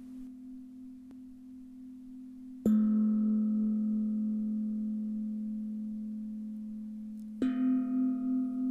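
Singing bowls struck twice, each ringing on and slowly fading with a wavering shimmer: a lower-pitched bowl about three seconds in, a higher one near the end, with the higher tone of an earlier strike still dying away at the start. The strikes mark the switch between breathing in and breathing out in a 5-second-in, 5-second-out breathing rhythm.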